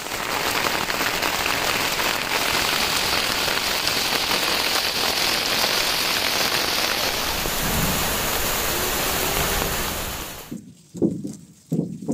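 Heavy rain falling steadily, with water streaming off the edge of a tin roof. About ten seconds in, the rain sound cuts off suddenly. A few short scraping strokes follow, about half a second apart: a metal spatula working thickened jaggery in a tray.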